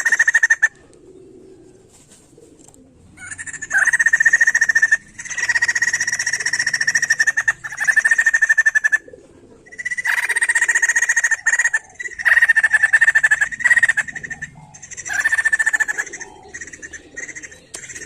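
White-crested laughingthrush (poksay jambul) calling in a string of loud phrases of rapid chatter, each about one to two seconds long, with short pauses between them.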